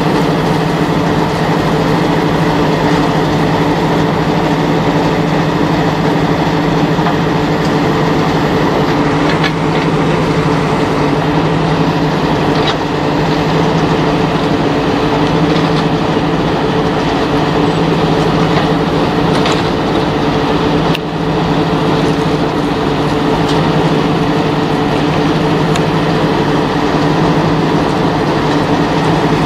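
A rotary impact crusher running steadily: a loud, continuous mechanical drone with a constant hum and occasional sharp clicks. Its conveyor is discharging crushed material.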